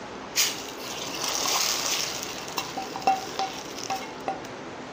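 Hot oil tempering of fried onions and curry leaves poured onto the curry, sizzling with a sharp start about half a second in, a hiss that swells and then fades after about two seconds. A few light metal clinks follow.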